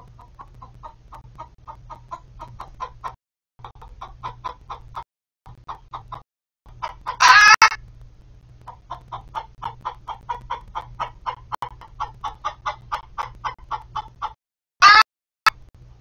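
Hens clucking in a rapid, even series of about four clucks a second, broken by a loud squawk about seven seconds in and a shorter squawk near the end.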